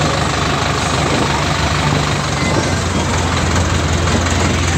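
Tractor engine running steadily, heard from on board while moving, with a constant low hum under wind and road noise.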